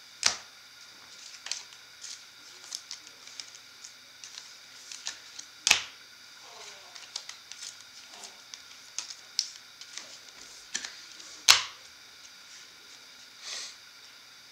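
Trading cards and packs being handled on a table: a run of small clicks and ticks, with three sharp snaps spaced about five to six seconds apart.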